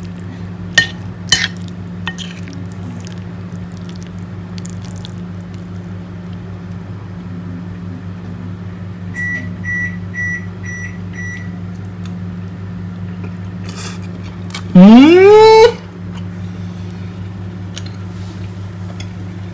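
Steady low hum with a few sharp clicks in the first two seconds. About nine seconds in, a kitchen appliance beeps five times in quick even succession. Near the end a loud tone sweeps upward in pitch for about a second.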